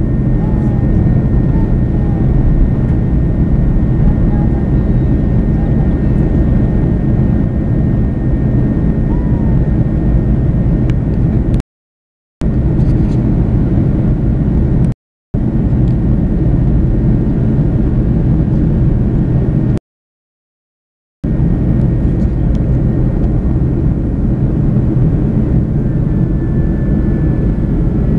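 Airbus A330 jet engines heard from inside the cabin while the airliner climbs after takeoff: a loud, steady low roar with a faint high steady tone over it. The sound cuts out completely three times around the middle, the longest for about a second and a half.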